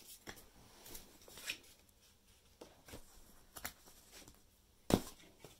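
Paper insert card from the phone box being picked up and handled: soft rustles and a few light clicks, with one sharper knock about five seconds in.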